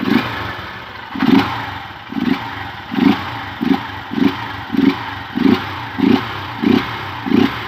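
Honda CG Fan 150 single-cylinder four-stroke engine, its throttle blipped about eleven times in quick succession from idle, slightly faster toward the end. With the intake hose pulled off the air-filter cover, each rev comes out with a deeper, more muffled intake sound.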